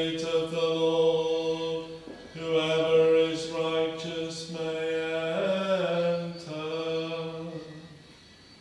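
A single voice chanting psalm verses on a held reciting note, in three long phrases with a brief rise and fall in pitch a little past halfway, trailing off near the end.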